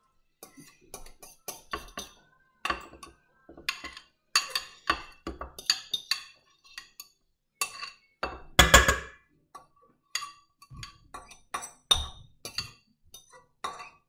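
Metal spoon tapping and scraping against a mixing bowl to knock mashed banana off it, a string of clinks and knocks, several with a short ring, busiest about halfway through.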